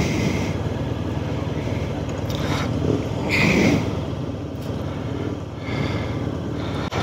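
Motorcycle engine running steadily, with a short louder burst of noise about three and a half seconds in.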